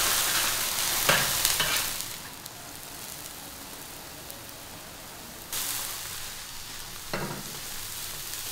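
Crown daisy greens sizzling in a large wok as they are stir-fried with a spatula. The sizzle is loudest for the first two seconds, dies down, then flares again about five and a half seconds in and once more near the end.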